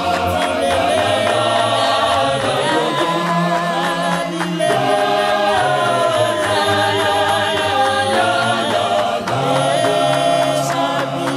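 Gospel choir singing in multi-part harmony, many voices together.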